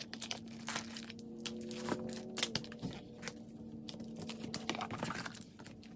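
Paper and plastic packaging of a K-pop season's greetings set being handled: scattered light crackles, rustles and small knocks, over a faint steady hum.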